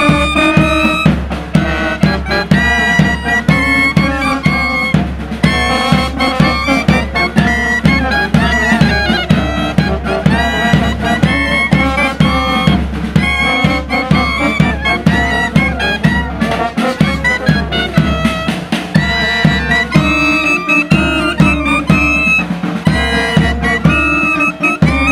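Uniformed brass band playing a tune: clarinets and brass horns carry the melody over a steady bass-drum beat.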